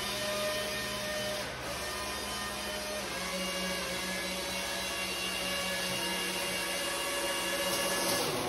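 Taiyo Typhoon RC toy hovercraft's small electric lift fan and rear propeller fans whirring steadily as it hovers along. The tone shifts a little about three seconds in as the fan speeds change.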